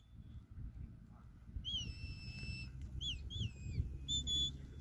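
Sheepdog handler's whistle commands from across the field: a long held note about a second and a half in, then two quick rising-and-falling chirps, then two short notes near the end.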